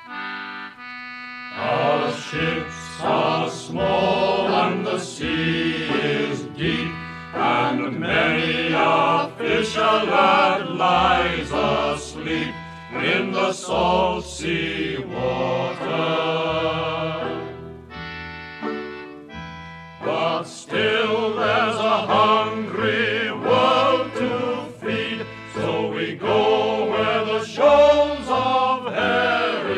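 Folk music: voices singing together over instrumental accompaniment with bass notes, with a short instrumental break of held notes past the middle.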